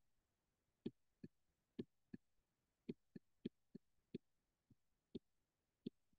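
About a dozen light clicks and taps, irregularly spaced, from writing by hand onto a screen, with near silence between them.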